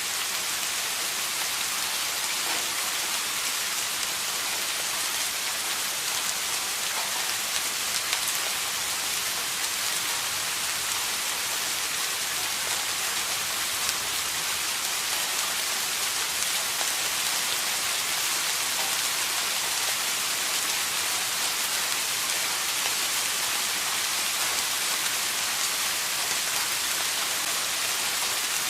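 Steady rain falling on a surface, an even hiss with many fine drop patters and no thunder.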